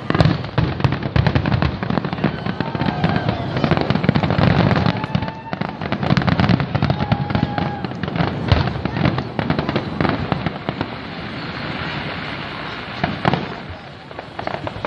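Fireworks display: many aerial shells bursting in quick, overlapping succession, a dense run of booms and crackle that thins out near the end.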